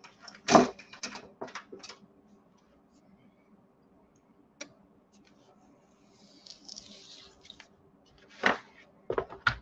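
Paper-craft handling: sharp taps and knocks of chipboard and card on a scoring board, with a soft scratchy rustle partway through as a craft knife trims a double-sided adhesive sheet along the chipboard's edge and the white offcut strip is pulled away. A few sharper knocks come near the end.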